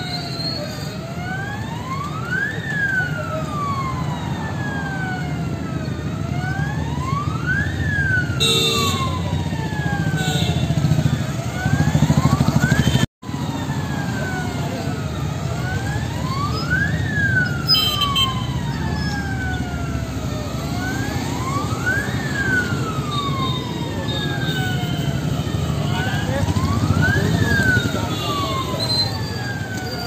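Electronic alarm siren of a gold-loan finance branch wailing, rising and falling slowly about every five seconds with fainter overlapping sweeps, over steady low background rumble; the alarm has been set off at the branch. The sound cuts out for an instant about thirteen seconds in.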